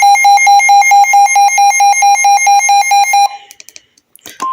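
A weather radio receiver's built-in alarm beeping rapidly and evenly, about five buzzer beeps a second, signalling that a warning is coming in. It stops after about three seconds. Near the end a short crackle is followed by the steady 1050 Hz NOAA Weather Radio warning tone.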